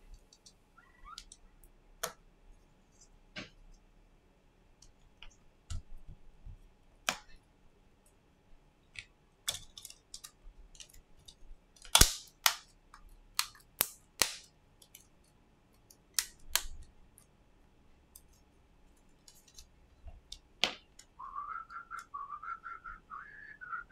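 Small sharp clicks and taps from a smartphone being reassembled by hand: a flex connector and the display being pressed into place, with tools and parts set down on a silicone mat. The loudest snap comes about halfway through. Near the end a wavering whistle-like tone comes in.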